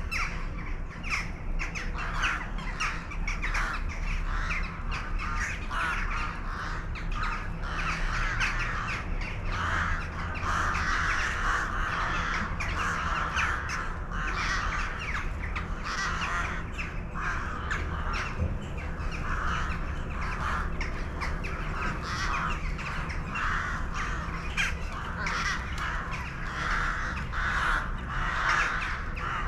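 A flock of birds calling continuously, many short calls overlapping one another, over a steady low rumble.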